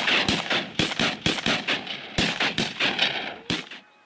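A volley of shotgun fire from several hunters shooting at once: about twenty shots in quick, overlapping succession, stopping abruptly about three and a half seconds in.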